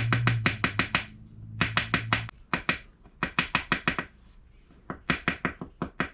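Rapid, sharp tapping in four quick runs of six to eight taps: freshly loaded shotgun shells being tapped to settle the buffer down through the shot. A low hum runs underneath for the first two seconds and then stops.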